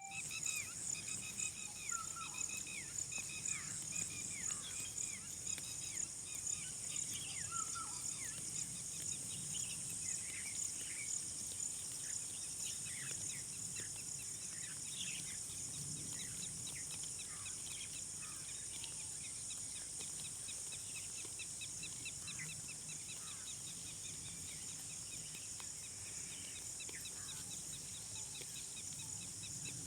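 Outdoor rural ambience: a steady high insect chirring with many short, falling bird chirps scattered over it, busier in the first half.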